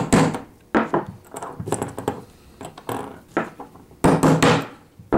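A small hammer tapping a 60-degree punch against a steel pin seated in a metal bench block: a series of sharp metallic taps, about one every half second, the loudest near the end. The punch is staking a dimple into each side of a two-piece bolt stop pin so it sits snug.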